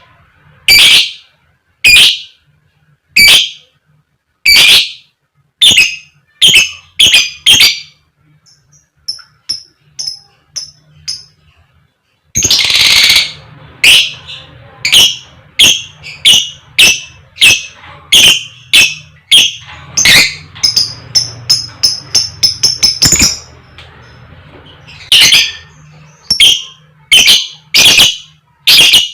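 A fighter lovebird giving its loud, sharp 'koek koek' call, short calls repeated about once a second. The calls are broken by a stretch of soft, high 'cik cik' twittering, a longer harsh call before the middle, and a quick run of calls past two-thirds of the way.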